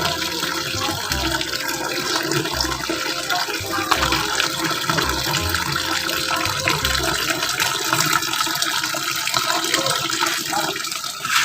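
Water pouring steadily from a hose into a washing machine tub as it is filled, with a few low thuds in the first part.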